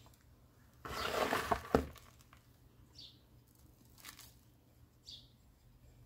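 Fingers pressing and scraping potting substrate around a succulent in a terracotta pot: a rustling, crunching burst of about a second, starting just under a second in. Faint short high chirps, falling in pitch, come about every two seconds after it.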